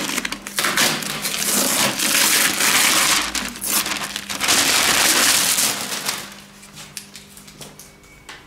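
Masking paper crinkling and crumpling loudly as it is pulled off a freshly lacquered scooter panel, dying down to quieter rustles about six seconds in.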